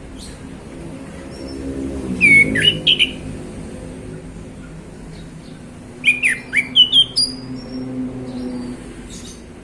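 Male orange-headed thrush singing: two short phrases of loud, clear whistled notes that sweep up and down, the first about two seconds in and the second about six seconds in.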